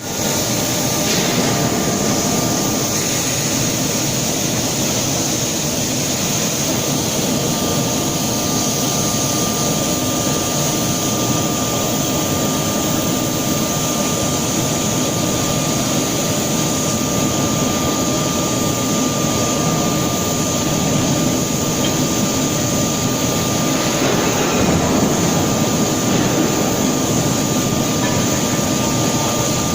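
Machinery of a 6300-ton forging production line running: a loud, continuous industrial roar with a steady high whine over it and no distinct press blows.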